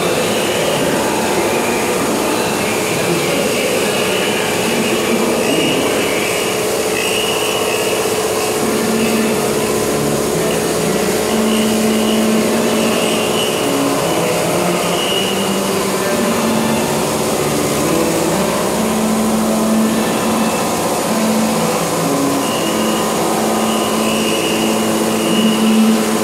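Handheld wet polisher running on a granite edge, a steady motor whine with a lower hum that comes and goes as the work goes on.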